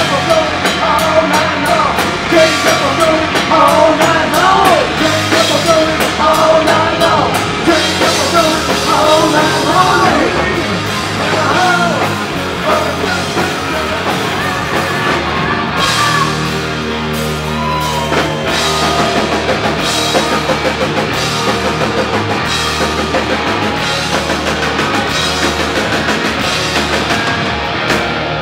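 Live rock band at full volume: electric guitars, bass and drum kit. A lead line bends and wavers in pitch over roughly the first ten to twelve seconds, then the band settles into a steady driving riff for the second half.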